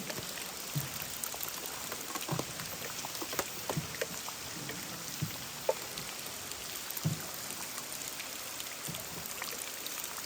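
Water dripping and splashing in a cave: scattered irregular drips and small splashes over a steady hiss.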